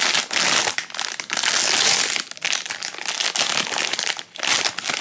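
Foil blind-bag packaging crinkling and crumpling as hands pull it open, a dense crackle with a couple of brief pauses.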